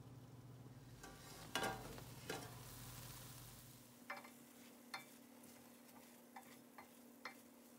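A wooden spoon stirring cooked vermicelli in a stainless steel pot, with a few light taps of the spoon against the pot in the second half. Two light knocks come earlier, in the first half.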